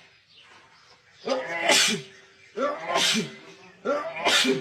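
A man sneezing three times in quick succession, about one sneeze every second and a half, each a short voiced intake snapping into a loud, sharp sneeze, as part of a sneezing fit.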